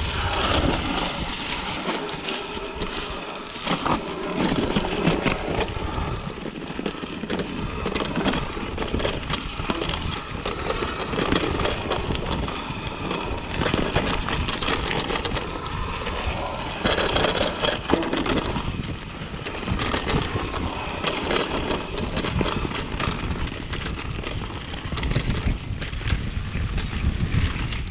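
Mountain bike descending a rough downhill trail at speed: a steady rush of tyres on dirt with constant rattling and knocking from the bike over bumps, and wind rumbling on the microphone.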